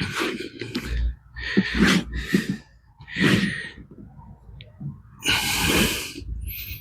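Hands rummaging through potting compost in a plastic pot, in a string of short rustling, scraping bursts with a longer rustle near the end.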